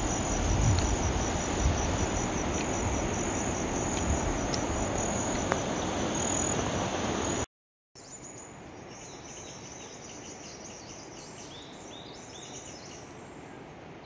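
Insects chirping steadily in a fast, high-pitched pulse, over a low rumble. About halfway through the sound cuts out for a moment, then the insect chorus goes on more faintly.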